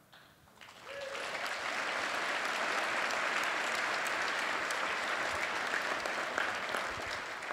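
Audience applauding: the clapping swells in about a second in and then holds steady.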